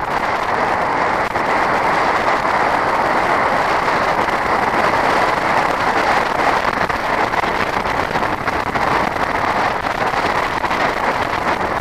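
Steady, loud rolling rush of road-bike tyres on a gravel dirt road, mixed with wind rushing past the moving bike.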